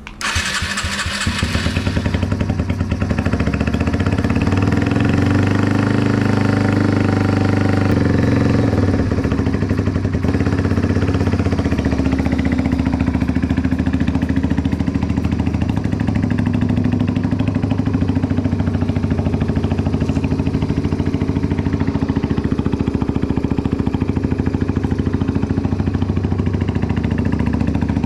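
Yamaha TW125's 125cc air-cooled single-cylinder four-stroke engine starting up and running loud. It is revved up and down a few times in the first several seconds, then settles into a steady idle with rapid, even firing pulses.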